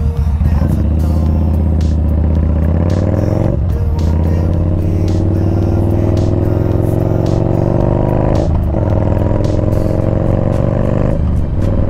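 Yamaha Bolt's air-cooled V-twin accelerating up through the gears. The pitch climbs steadily and drops at gear shifts about four and about nine seconds in, then again near the end.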